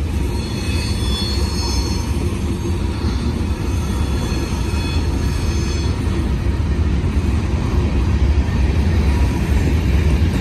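Freight train cars, mostly hoppers, rolling steadily past: a continuous rumble of steel wheels on rail, with faint high-pitched wheel squeal in the first half.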